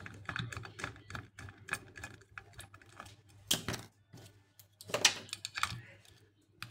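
Light metal clicks and taps from handling the small parts of an opened hard disk drive and setting a screwdriver to its screws, with a couple of louder clatters past the middle.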